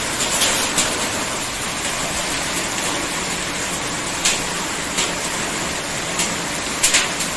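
Heavy downpour: a steady hiss of rain, with occasional sharp clicks of hailstones striking hard surfaces.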